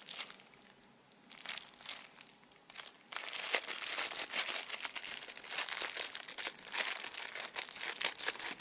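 Crinkling plastic toy packaging being handled, in scattered crackles at first and then continuous from about three seconds in.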